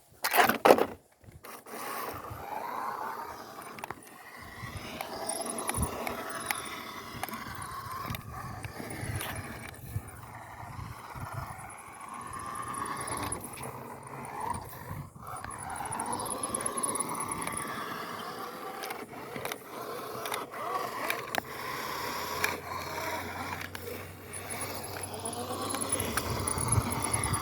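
Toy-grade RC car's small electric motor and gearbox whining and grinding as it drives through sand, its pitch rising and falling with the throttle, with a loud knock about a second in. It is not running right; the driver thinks something in it broke.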